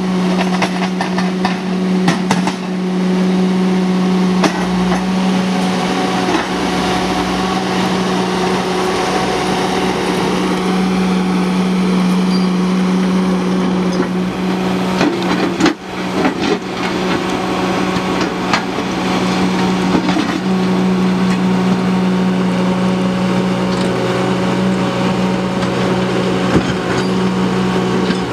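Ditch Witch SK900 mini skid steer's engine running at a steady speed under load as the machine digs rocky soil, with a few scattered knocks from the bucket against stones.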